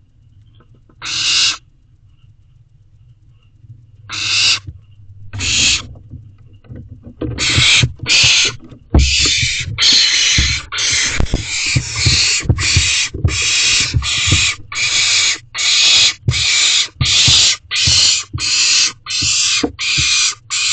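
Barn owlet's hissing, screeching food-begging calls, each about half a second long. A few come spaced seconds apart at first; from about seven seconds in they repeat rapidly, one or two a second, with low thumps beneath.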